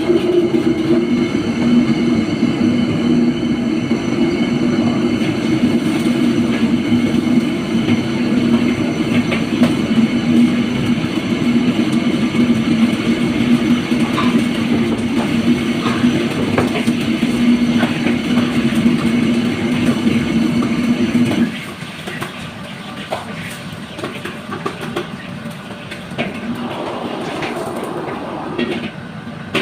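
A loud, steady mechanical roar with a low hum and scattered light clatter. The roar cuts off suddenly about three-quarters of the way through, leaving quieter noise and clicks.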